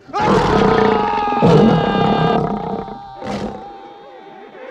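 Film sound effect of a demon dog's roar: loud and harsh, swelling again about a second and a half in, then fading, with a short sharp burst about three seconds in.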